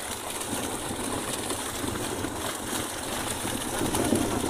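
Steady churning and splashing of muddy river water as a large plastic sheet and net are dragged through it along the bank.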